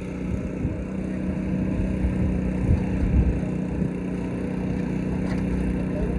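Small gasoline engine of a pressure washer running steadily at a constant speed, with a couple of brief knocks about three seconds in.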